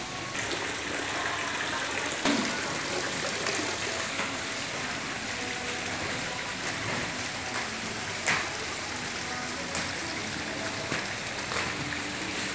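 Steady splashing, running water with a faint thread of background music. Two sharp knocks stand out, about two seconds in and about eight seconds in.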